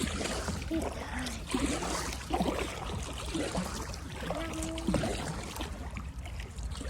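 River water running and trickling around a kayak moving downstream, with a steady low rumble beneath it. Short voice sounds come through now and then.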